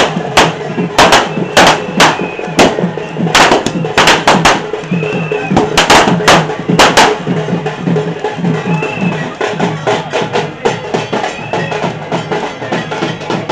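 Drums beating loudly. Heavy sharp strikes come in an uneven rhythm for the first several seconds, then give way to a quicker run of lighter beats, with crowd voices underneath.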